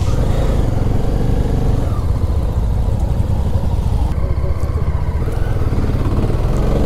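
Yezdi Scrambler's single-cylinder engine running steadily at low speed, a continuous low rumble.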